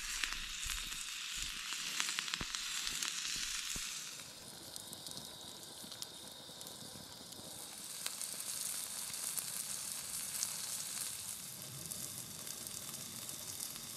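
Pork ribs sizzling on a rock heated in a campfire: a steady hiss with occasional small pops.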